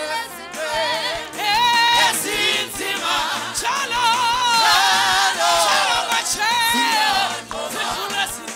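Live gospel praise-and-worship singing: a group of women's voices singing together through microphones and loudspeakers, over a steady low beat of about two thumps a second.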